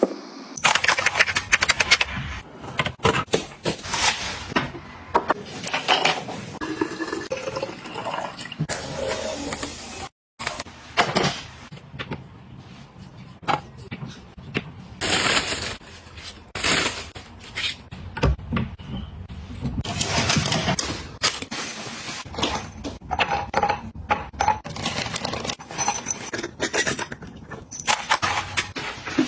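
Close-up handling sounds of items being unpacked and put away: a busy run of clicks, knocks, rustles and scrapes, with a brief break in the sound about ten seconds in.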